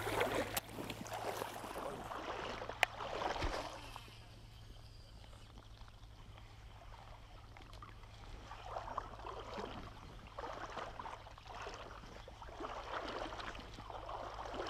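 Shallow river water sloshing and splashing in uneven bursts, louder in the first few seconds and again in the second half, with two sharp clicks near the start.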